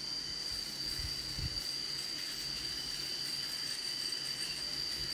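Electric rotary shaver running with a steady high whine as it shaves stubble on the chin and upper lip.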